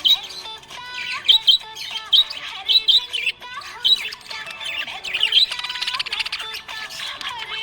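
Budgerigars chirping and warbling: a busy, continuous run of short high chirps mixed with lower, wavering chatter notes.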